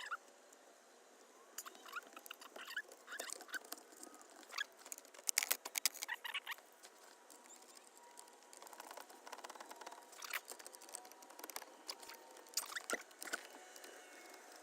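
Scattered clicks, taps and light rattles of hard plastic and connectors as a Toyota Prius's driver airbag module is fitted back into the steering wheel and clipped in, with a dense cluster of sharp clicks about five seconds in.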